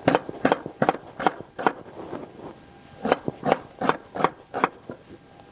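Kitchen knife chopping vegetables on a wooden cutting board: a run of about five even strokes, a pause of about a second, then about five more.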